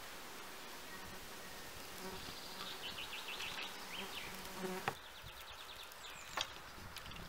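A bee buzzing close by, a steady low hum lasting a few seconds that stops just before the midpoint. Two sharp clicks come later, one near the middle and one over a second after it.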